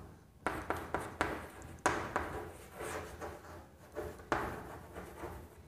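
Chalk writing on a chalkboard: an irregular run of sharp taps and short scratchy strokes as letters are written.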